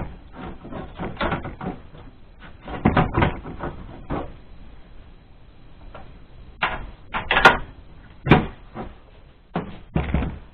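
Irregular clicks, taps and knocks of a sheet-metal mounting plate from a Wolf CWL 300 ventilation unit, with its blower fitted, being handled and turned over on a wooden table. The sharpest, loudest knocks come in the second half.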